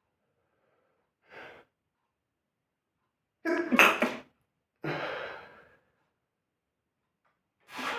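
Sneezing: a short faint breath about a second and a half in, then two strong sneezes close together around four and five seconds in, the second fading away, and a quick flurry of further sneezes or snorts near the end.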